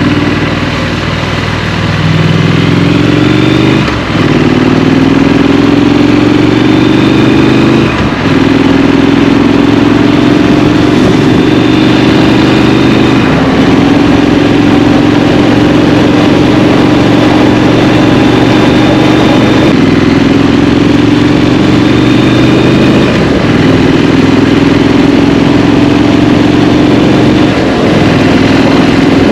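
Triumph Street Scrambler's 900 cc parallel-twin engine under way, its pitch climbing as it accelerates, with brief dips at gear changes about 4 and 8 seconds in, then running at a steadier pitch with small rises and falls of the throttle.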